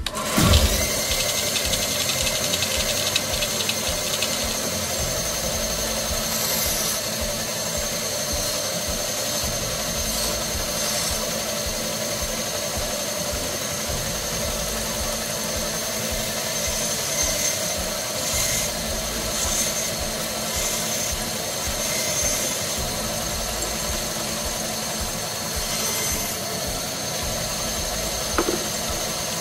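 Bandsaw running steadily as it trims small pine sticks for rustic walking sticks, with short bursts of cutting noise every few seconds as the blade takes off twigs, and a single knock near the end.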